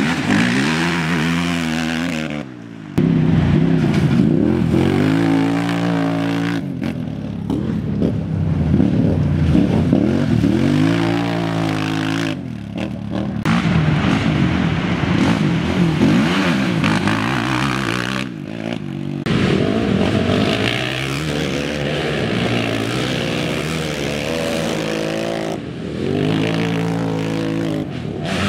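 Racing quad ATV engines revving hard, one machine after another, pitch climbing and falling as each rider accelerates and backs off on a rough dirt trail.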